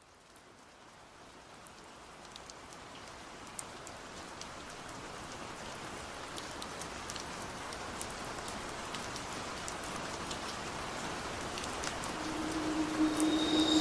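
Heavy rain falling: a steady hiss with scattered drop ticks, fading in gradually from silence and growing louder throughout.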